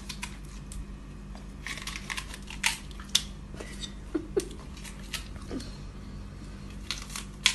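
A Siberian husky biting and chewing a crisp green vegetable, making irregular short crunches, with a low steady hum underneath.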